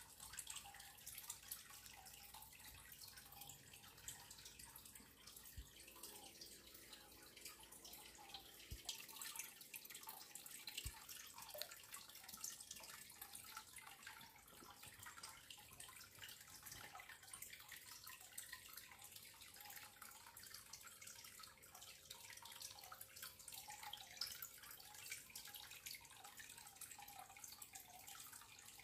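Near silence, with faint scattered drips and light trickling water.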